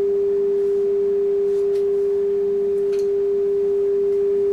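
Steady sine-wave test tone from an audio generator, played through a Sonab R4000 amplifier, held at one unchanging pitch of a few hundred hertz.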